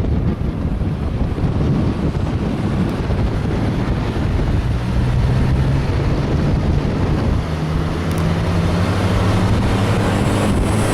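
Off-road vehicle driving, with steady road and wind noise on the microphone. About halfway through, a low engine hum comes up and rises slowly in pitch as the engine picks up speed.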